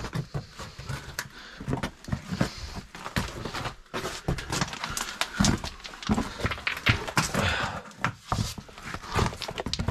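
A person crawling through a tight rock passage: irregular scrapes and knocks of gloved hands, knees and gear against the rock, with clothing rustling between them.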